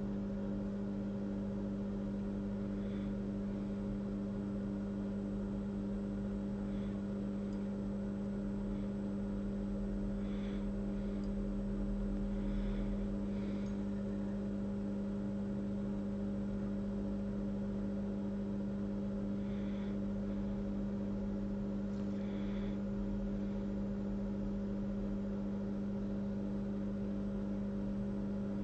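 Steady electrical hum from the microsoldering bench equipment, one low tone with several higher overtones, unchanging throughout, with a few faint soft ticks now and then.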